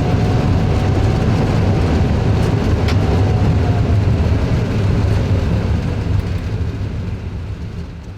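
Airbus A320neo on its landing rollout just after touchdown, heard from the cockpit: a loud, steady deep rumble of engines and runway, with a faint falling tone and a single click about three seconds in, dying away over the last few seconds.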